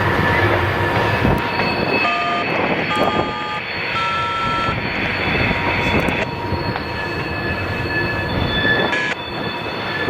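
Freight train rolling past, with a steady rumble of cars on the rails and high-pitched steel wheel squeal that shifts between several tones.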